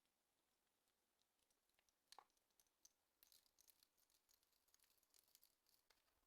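Near silence with faint, scattered clicks and crackles, thickest in the second half.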